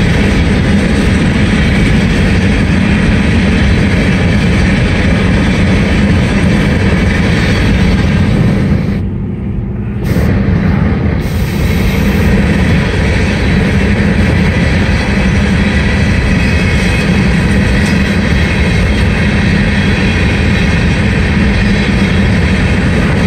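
Steady road and wind noise of a car driving at highway speed, with a low hum. The sound briefly dulls, losing its hiss, about nine seconds in.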